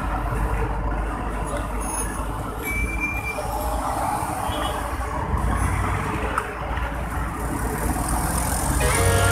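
Steady background rumble and hiss in a pizzeria kitchen, with no clear separate event. Music begins near the end.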